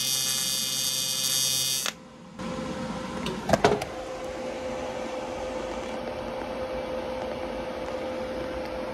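AC TIG welding arc on aluminum, buzzing steadily while a tack is laid, and cutting off abruptly about two seconds in. A few sharp knocks follow about a second and a half later, then a steady machine hum with a held tone.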